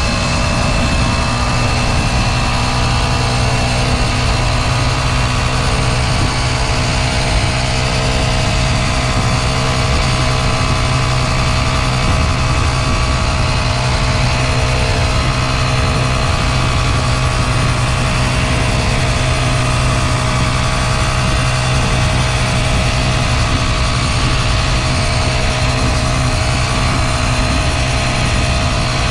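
Motorcycle engine running at a steady, unchanging pitch, with no revving.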